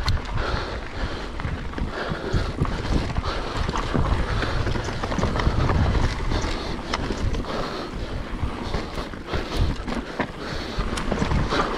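Mountain bike descending rocky singletrack at speed: tyres rolling and crunching over stone with frequent clicks, knocks and rattles from the bike, under a steady rumble of wind on the microphone.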